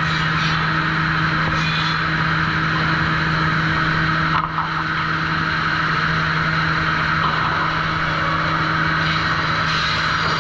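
Sawmill trimmer machinery running steadily, a constant mechanical hum with a steady low tone, dipping briefly about four and a half seconds in.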